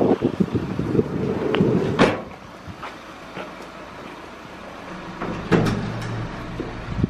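Rumbling vehicle noise with wind on the microphone, cut off by a door banging shut about two seconds in. After that it is much quieter, with a few knocks.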